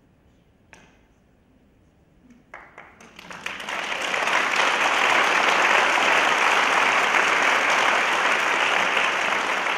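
Quiet at first with a couple of small knocks, then an audience breaks into applause about three seconds in, quickly swelling to loud, steady clapping.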